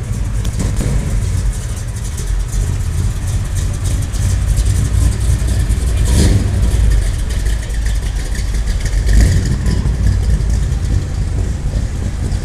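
Car engines running with a loud, steady low rumble, swelling briefly louder twice, about six and nine seconds in, as if revved or passing close.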